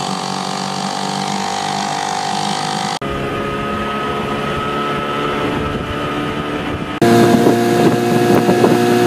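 Outboard motors running under way on the water, in three clips cut together. The engine sound changes abruptly about three seconds in and again about seven seconds in, and the last clip is louder, with wind on the microphone.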